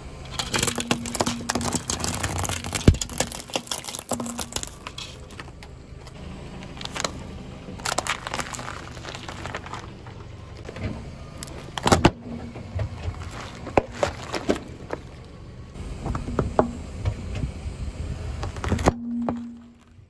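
A car tyre rolling slowly over objects and crushing them: a dense run of crackling and snapping as pine cones and CDs break in the first few seconds, then further scattered cracks and crunches, one loud crack about halfway through, over the low running of the car.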